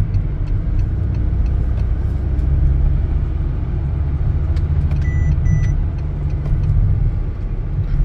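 Car engine and road noise heard inside the cabin, a steady low rumble as the car accelerates to overtake a tractor. About five seconds in come two short electronic beeps, half a second apart.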